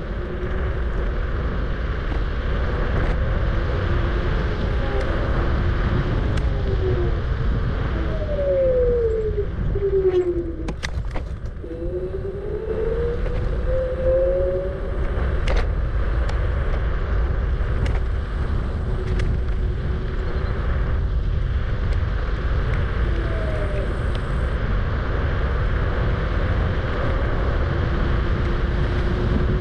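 Wind rushing over the microphone and road rumble while riding a Kugoo G-Booster electric scooter. Around the middle, the scooter's motor whine falls and then rises in pitch as it slows and speeds up, with a few short clicks.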